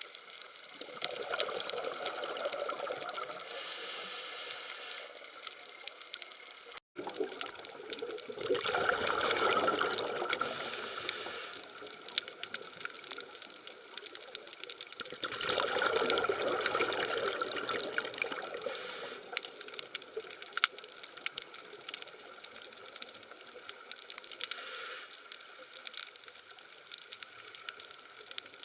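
Water ambience: a steady wash of moving, bubbling water dotted with many small crackling clicks. It swells louder three times, and there is a brief dropout about seven seconds in.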